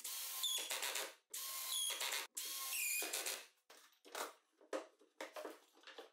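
Cordless drill/driver driving screws into plywood: three runs of about a second each, the motor whine dropping in pitch near the end of each as the screw seats. After that, a few light knocks and clicks of wooden parts being handled.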